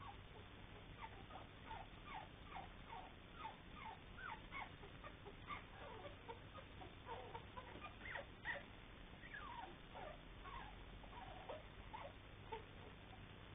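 Three-week-old puppies squeaking and whimpering: a faint run of short, high, sliding cries, two or three a second, loudest about two-thirds of the way through.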